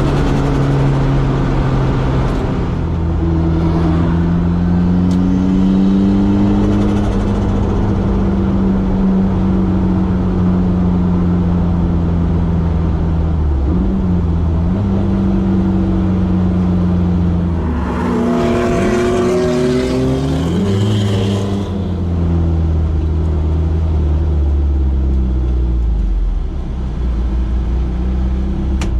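Toyota MR2 AW11's swapped-in 3S-GTE turbocharged four-cylinder engine running hard under load, its pitch holding and shifting with the revs. From about 18 to 22 seconds in, a burst of hissing comes in over quick rises and falls in engine pitch.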